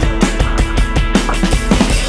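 Rock music with a fast, steady drumbeat.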